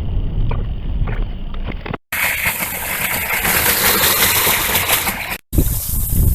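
Strong typhoon wind buffeting the microphone with a heavy low rumble, broken by two abrupt cuts; between the cuts the wind becomes a loud, steady, hissing rush.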